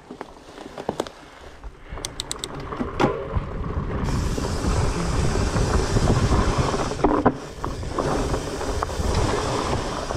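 Trek Farley 9.8 fat bike rolling along a dirt trail. A few clicks and knocks come first, then from about four seconds in a steady rush of tyre and trail noise with rattles, getting louder as the bike picks up speed.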